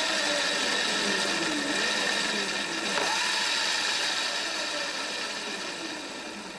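48-volt brushed DC motor of an electric motorbike running under throttle, its whine rising and falling in pitch as the throttle is worked. It winds down gradually over the last couple of seconds.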